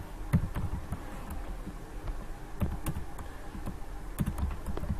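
Computer keyboard being typed on: scattered, irregular keystrokes, some in quick pairs, with short pauses between them.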